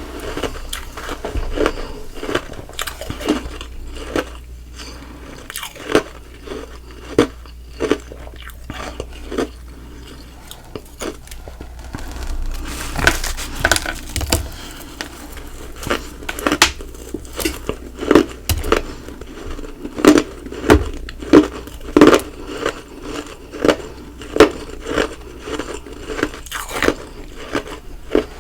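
Close-up crunching and chewing of ice, humidifier frost and soft nugget ice: a string of sharp bites and crunches, with a thicker stretch of continuous chewing about halfway through.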